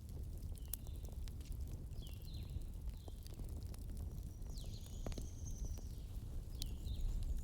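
Wood fire crackling with scattered sharp pops over a steady low rumble. Above it come a handful of short, high, downward-sweeping chirps and one longer high whistle midway, from an animal.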